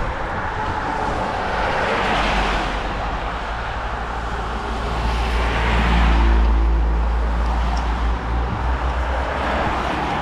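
Road traffic passing: a vehicle hiss swells and fades about two seconds in, then a louder pass with a deep engine rumble around the middle.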